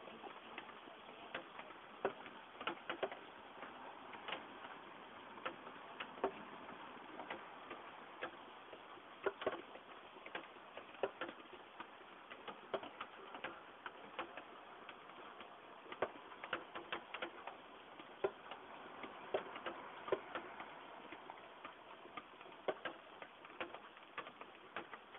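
Heavy rain falling: a steady hiss with irregular sharp ticks of drops striking hard surfaces close by.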